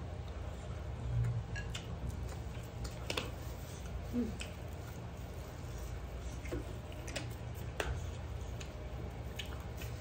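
Close-up eating sounds of a person chewing and taking rice by hand: scattered wet mouth clicks and smacks, with a brief mouth or throat sound about four seconds in. A steady low hum runs underneath.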